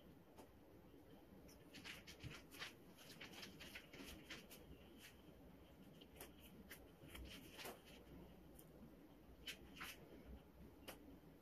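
Near silence with faint, scattered small clicks and rustles from handling plastic paint squeeze bottles.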